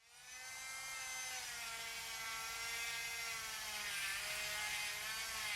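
Proxxon IBS/E drill grinder's small motor running at high speed with a steady high whine. The pitch wavers slightly and dips briefly about four seconds in.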